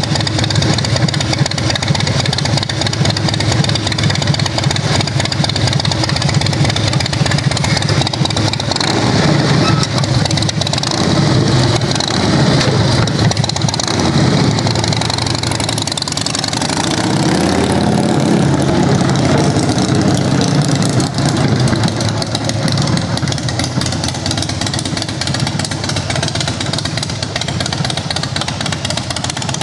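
2006 Harley-Davidson Night Train's Twin Cam 88B V-twin running through Vance & Hines exhaust pipes: idling steadily, then revved up and down several times, then ridden off.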